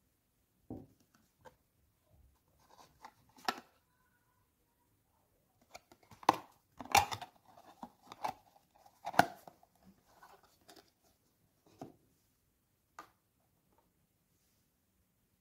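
Cosmetic packaging handled by hand: a cardboard box and a cream jar with its wrapping rustling, scraping and clicking in short bursts with quiet gaps, busiest in the middle.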